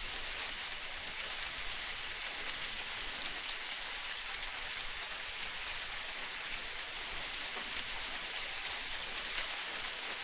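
Steady rain-like hiss of water, strongest in the highs, with faint scattered ticks; no creak stands out.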